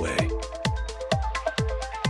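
Background electronic dance music with a steady kick drum about twice a second and ticking hi-hats.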